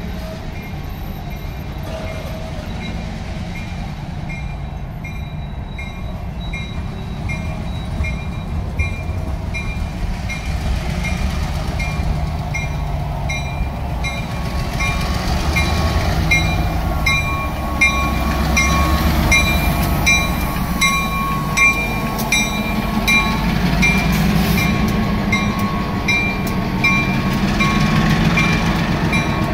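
A freight train passing slowly over a grade crossing: rumble and wheel noise from covered hopper cars, with the crossing bell ringing steadily about one and a half times a second. In the second half a diesel switcher locomotive's engine comes up louder as it reaches the crossing.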